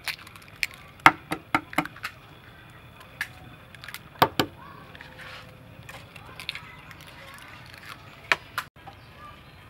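Raw eggs being cracked open by hand over a metal tray of beef chunks: sharp clicks of eggshell breaking, in small clusters of two or three.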